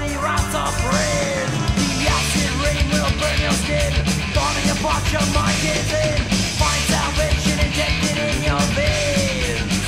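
Thrash metal song from a record: distorted electric guitars over fast, dense drumming, loud and unbroken.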